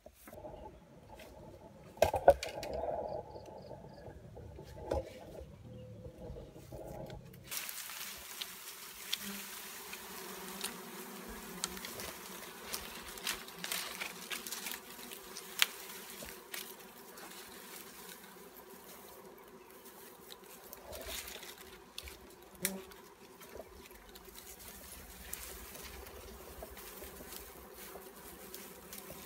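A swarm of honeybees buzzing around their hive in a tree, a steady hum of many wings, with scattered sharp clicks. The first seven seconds are louder and uneven, with a sharp knock about two seconds in, before the hum settles.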